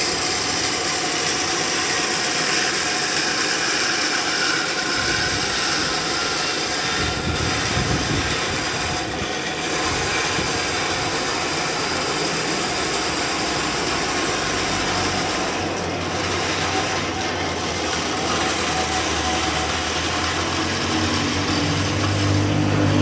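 Band sawmill running steadily as it rips timber lengthwise, a continuous hissing mechanical noise. A deeper pitched hum swells in near the end.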